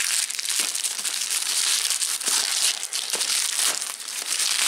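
Parcel packaging crinkling and rustling as it is handled and opened by hand: a dense, continuous run of small crackles.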